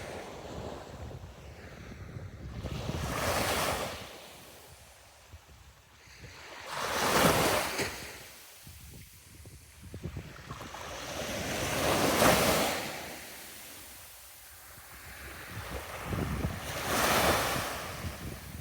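Sea waves breaking and washing up the beach, four swells about every five seconds, each building to a rush and fading away.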